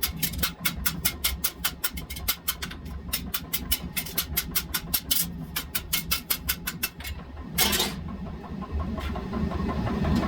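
Rapid, even hammer blows on steel at the forge, about four or five a second, over a steady low rumble. The blows stop about seven seconds in, and a short hiss follows.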